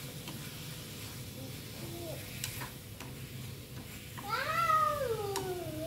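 A cat meowing: one long meow that rises and then falls in pitch, near the end. Underneath is the faint sizzle of meat frying in a pan.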